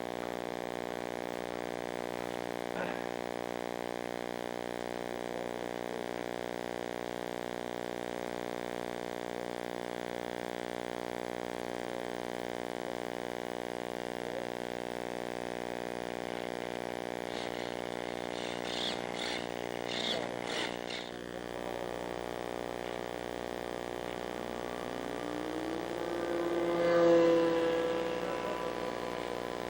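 Model airplane motor running at a steady drone through the onboard camera's sound, then rising in pitch and getting louder near the end as it is throttled up.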